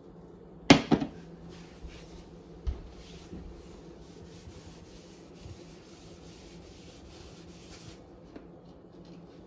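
A rag rubbing baking soda and water paste onto the inside wall of an oven in even strokes, about two a second, after a few sharp knocks about a second in.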